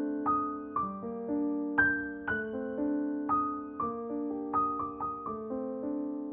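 Background piano music: single notes struck about twice a second over held lower notes, the last one dying away near the end.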